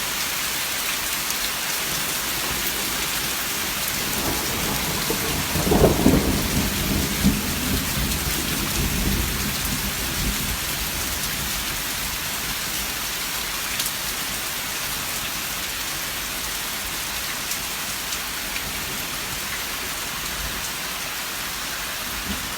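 Steady hiss of heavy rain, with a low rumble like thunder swelling about six seconds in and dying away over a few seconds.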